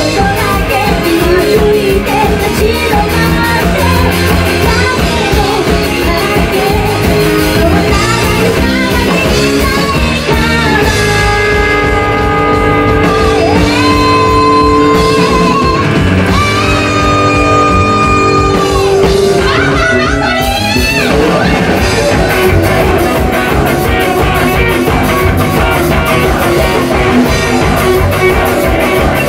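Live rock band playing: a woman singing over electric guitar, electric bass and drum kit. About a third of the way in the music thins to long held notes for several seconds, then the full band comes back in.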